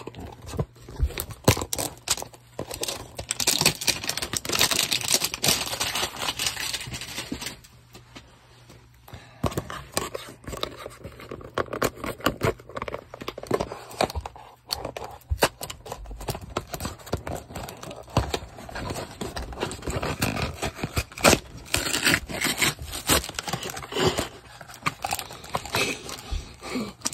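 Cardboard hanger box of baseball cards being torn open by hand: irregular tearing, scraping and crinkling, with a quieter stretch about eight seconds in.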